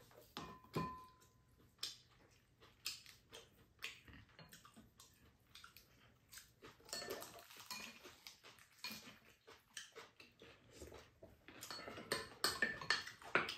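Spoons and chopsticks clinking and scraping against ceramic bowls and a pan as two people eat. The clicks come in an irregular scatter, one briefly rings about half a second in, and they grow busier near the end.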